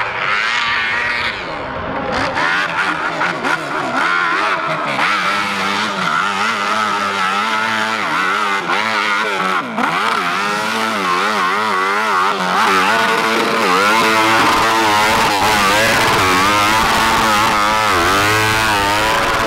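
Dirt bike engines revving hard on steep hill climbs. The pitch swings up and down quickly and repeatedly as the throttle is worked, over a steadier engine drone.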